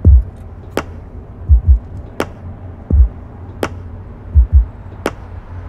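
Slow drum beat: deep kick-drum thumps, some in quick pairs, alternating with a sharp crack about every second and a half, over a low steady hum.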